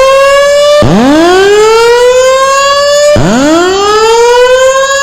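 Fire alarm voice-evacuation system sounding its whoop tone: a loud pitched tone that sweeps upward, drops back and sweeps up again, each rise taking a little over two seconds, restarting about a second in and again just past three seconds.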